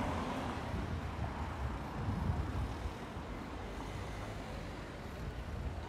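City street ambience: a steady low rumble with no distinct events standing out.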